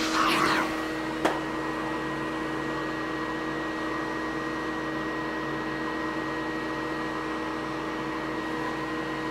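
Shop vacuum running with a steady hum. At the very start its hose sweeps sanding dust off a wooden kayak seat with a brief rushing hiss, and a single click comes about a second in.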